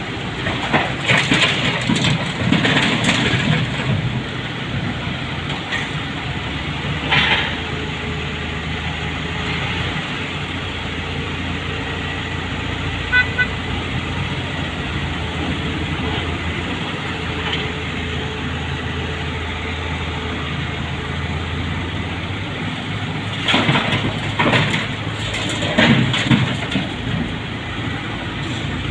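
A heavy vehicle's diesel engine running steadily, with louder noisy surges about a second in, around seven seconds, and again between about 23 and 27 seconds.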